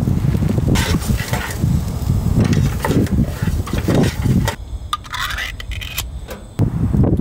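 Wind buffeting the microphone in strong gusts. It eases for a couple of seconds about two-thirds through, and a few light clicks of cooking gear being handled come through before the wind picks up again.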